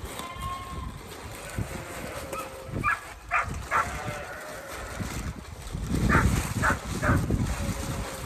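Sheep calling: two quick runs of three short calls, about three seconds apart, over shuffling and knocking in the pen.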